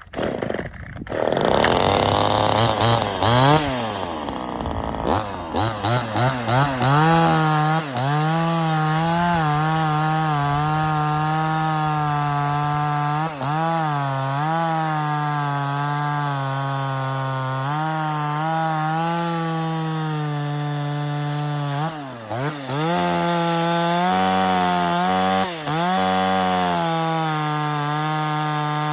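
A new 26 cc two-stroke chainsaw starts about half a second in, is revved in quick blips, then runs at high speed through wood, the engine pitch dipping briefly a few times under load. The engine is fresh and still being broken in.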